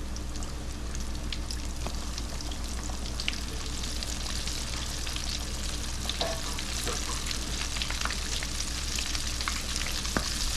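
Floured frog legs deep-frying in grease at 350°F, just put in: a steady sizzle with a dense crackle of small pops.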